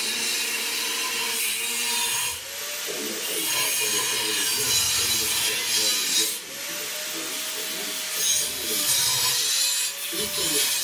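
A power grinder working on metal: a steady, loud hiss with the motor's pitch sagging and recovering under load, broken by brief pauses about two, six and ten seconds in.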